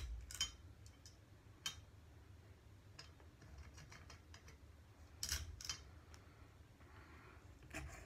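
A hand handling a ceiling fan's light fixture and pull chain, giving a few sharp clicks and light metallic taps at irregular intervals, with a close pair about five seconds in.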